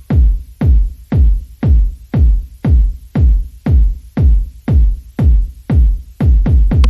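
Background electronic music with a steady, heavy kick-drum beat, about two beats a second.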